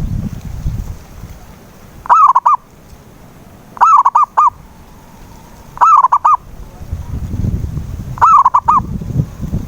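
Zebra dove (perkutut) cooing: four short phrases of three or four quick notes each, repeated about every two seconds. Low wind rumble on the microphone at the start and again near the end.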